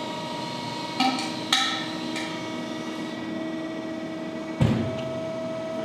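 Hydraulic crimping machine running with a steady hum while its dies crush a steel pipe with a golf ball inside. There are three sharp cracks in the first couple of seconds and a louder bang about four and a half seconds in, as the metal gives way under the press.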